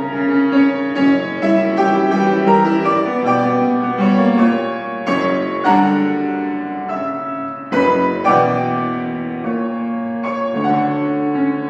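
Solo piano playing: a flowing melody over sustained chords, with a strong new chord struck about eight seconds in.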